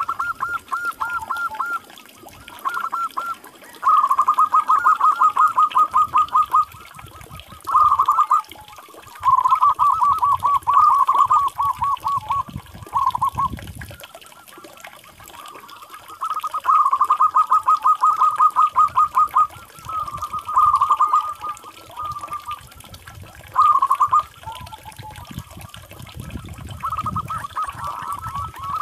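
Zebra dove (perkutut) cooing: about ten bursts of rapid, evenly repeated staccato notes at one pitch, each run lasting from under a second to a few seconds, with short pauses between.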